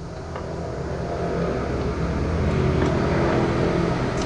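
A motor vehicle's engine running steadily, gradually growing louder.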